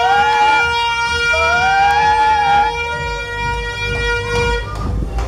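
Horns blowing: one steady, held horn tone runs throughout, and a second, wailing tone rises and falls over it twice. A low rumble builds in the second half.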